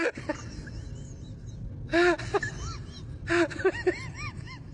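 An animal's short squeaky calls, each rising and falling in pitch, in two quick bursts of about five calls, one about two seconds in and one about three and a half seconds in, over steady outdoor background noise.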